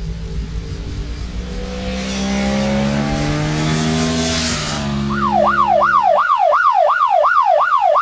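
Kawasaki Ninja 650R parallel-twin sport motorcycle approaching and passing at speed, its engine note rising and then dropping as it goes by with a rush of air. About five seconds in a siren starts, wailing up and down about two and a half times a second.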